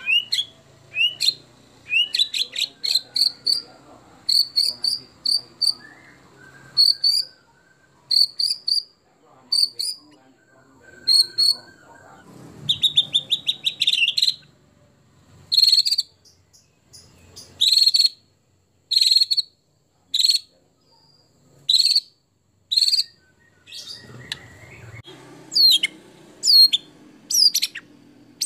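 White-rumped shama (murai batu) singing: sharp, sweeping whistled notes repeated about once or twice a second, with a fast rattling run of notes about halfway through.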